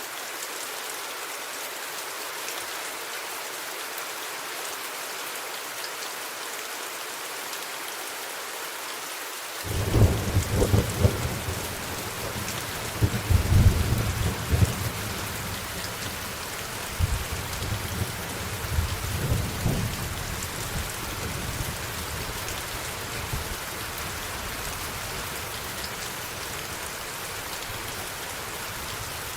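Steady rain falling. About ten seconds in, thunder breaks out suddenly and rolls in several surges for about ten seconds before dying away, leaving the rain alone.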